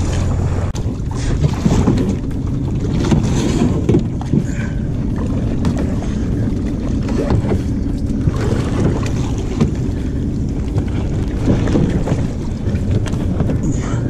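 Wind rumbling on an action camera's microphone over the sound of river water, a steady noise without a break.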